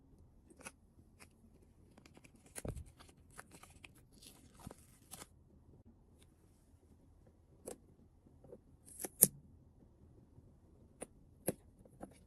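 Toy packaging handled and torn open: scattered crinkling and tearing for a few seconds, then a handful of sharp clicks, the loudest about nine seconds in.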